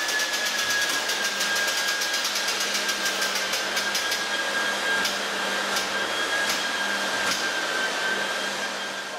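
Steady motor whir with a high whine that slowly falls in pitch and a low hum beneath it, while a steel beam is raised on a Roust-A-Bout material lift. Light clicks come quickly at first, then about once a second.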